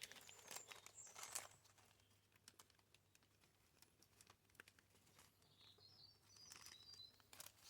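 Near silence with faint clicks and small rustles of small carburettor parts, gaskets and diaphragms being handled. A faint high chirping comes near the end.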